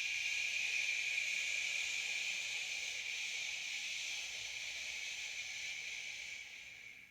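A man's long, steady 'shhh' exhale, like shushing somebody: the liver's healing sound in a Chinese-medicine breathing routine. It fades out near the end.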